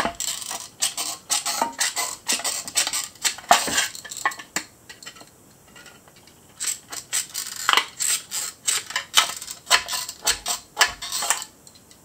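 Tin snips cutting thin sheet steel from a flattened tin can: rapid runs of sharp metallic snips and crinkles, with a short pause about halfway through.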